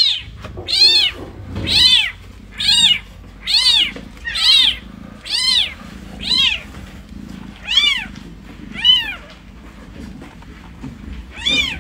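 A newborn kitten mewing over and over in high, thin cries, about one a second, each rising and then falling in pitch. The cries stop about nine seconds in, and one more comes near the end.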